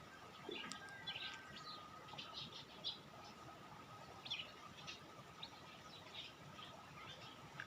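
Small birds chirping: many short, quick chirps and twitters, irregular and overlapping, faint.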